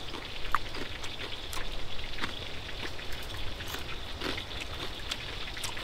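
Oil sizzling and crackling in a wok on a lit camp-stove burner, with scattered small pops.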